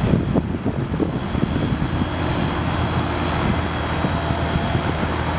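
Heavy diesel earthmoving machinery running steadily at a steady low drone, with a few clunks in the first half-second and some wind noise on the microphone.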